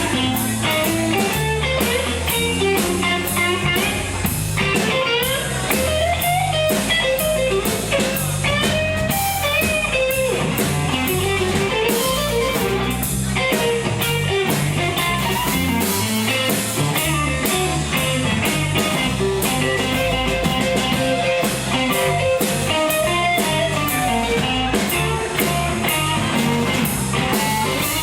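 Live blues band playing: a guitar line with bent notes over a walking bass and a drum kit keeping a steady cymbal beat.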